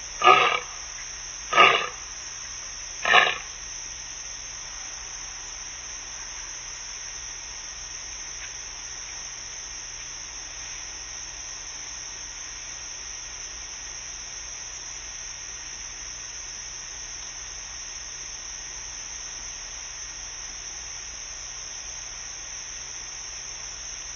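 Lioness roaring: three short calls about a second and a half apart in the first few seconds, the tail of a roaring bout, then only steady hiss.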